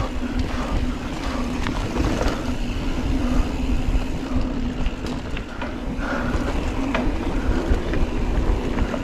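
Wind rumbling on the microphone and knobby tyres rolling fast over a dirt trail on a mountain bike, with scattered clicks and rattles from the bike over bumps and a steady low hum underneath.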